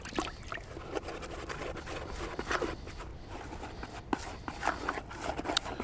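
Fingers mixing over-wetted groundbait in a plastic bait tub, working it into a wet paste. Quiet, with many small ticks and crackles throughout.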